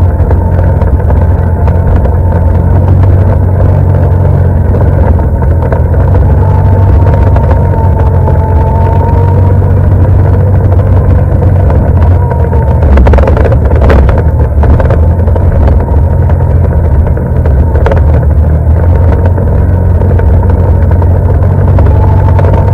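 ATV engine running at steady riding speed, loud and close, with a slowly wavering whine over a heavy low rumble. A few sharp knocks come about two-thirds of the way through.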